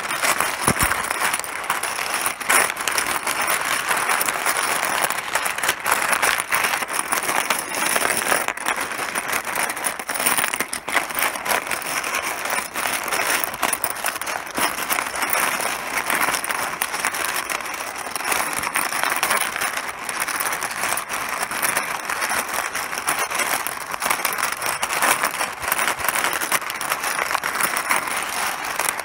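Mahjong tiles clattering: a dense, continuous stream of small hard clicks knocking against one another.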